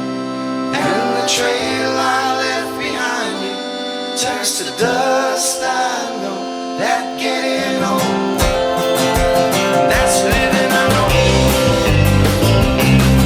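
Live rock band playing with singing: held guitar and keyboard chords at first, then a steady drum beat comes in about eight seconds in and heavy bass joins a few seconds later as the song builds.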